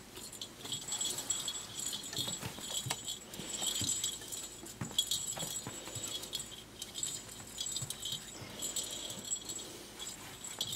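A hollow plastic lattice toy ball rattling and jingling in short, irregular bursts as a Pembroke Welsh Corgi puppy noses and mouths it, with small clicks and taps.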